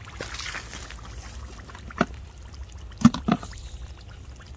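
Hands working in shallow muddy water while picking up snails: water trickling and dripping, then a few short splashes about two and three seconds in.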